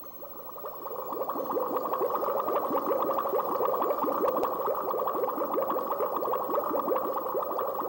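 Air bubbling steadily through water from a tube into a glass tank, a dense run of quick bubble gurgles fading up over the first second or so.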